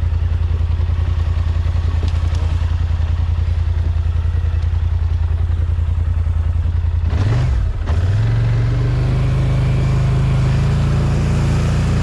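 All-terrain vehicle engine running at a steady low idle, then about seven seconds in the revs rise and it settles into a higher, steady engine speed as it gets under way.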